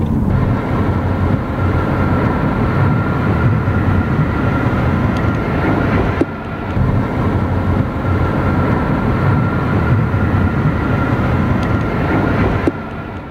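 Steady road and wind noise of a car travelling at highway speed, with a thin steady tone running through it. An abrupt cut about six seconds in, after which it is briefly quieter.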